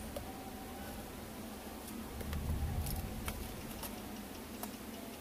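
Scattered light clicks and taps from hands handling laptop parts, over a low steady rumble.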